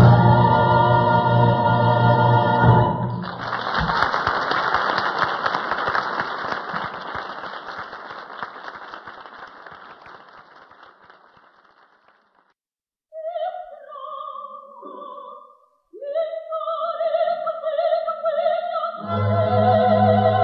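Opera chorus, soloists and orchestra holding a final chord, cut off about three seconds in by audience applause in a live performance. The applause dies away over some nine seconds. After a moment of silence the orchestra starts again with short phrases, then fuller chords near the end.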